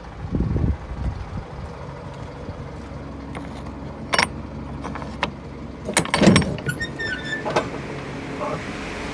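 Sharp metallic clanks and rattles from the rear cargo doors' latch bars and hinges on a box truck body as the doors are unlatched and opened, loudest a little past the middle, over a steady low hum.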